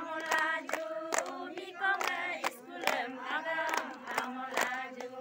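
A group of women singing together, keeping time with steady hand-clapping about two claps a second.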